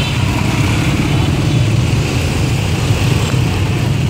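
Steady noise of dense street traffic, mostly small motor scooter and motorbike engines running around the listener in slow, crowded traffic.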